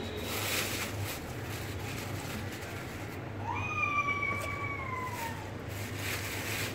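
One long animal call, rising sharply and then falling slowly over about two seconds, a little past the middle. Plastic bags crinkle as they are handled.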